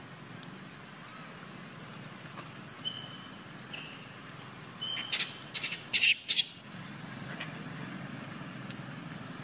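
High-pitched animal calls: two short, thin chirps about three seconds in, then a quick run of five loud, shrill squeals between about five and six and a half seconds in. A steady low hum lies underneath.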